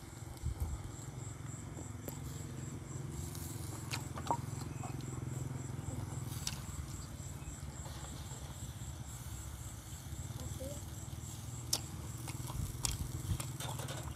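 Quiet outdoor background during a meal: a steady low hum under a faint, evenly pulsing high chirp, with a few sharp clicks of dishes and utensils.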